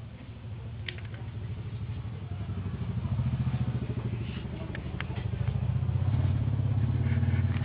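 A cat's low, rapidly pulsing rumble close by, growing louder after the first couple of seconds, with a few faint clicks.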